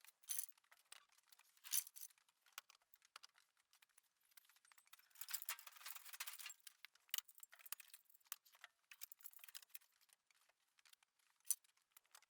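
Near silence broken by faint scattered clicks and light rattles, most of them bunched about five to seven seconds in.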